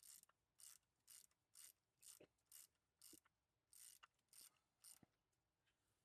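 Faint ratchet wrench being worked back and forth in short strokes, a burst of ratcheting clicks about twice a second.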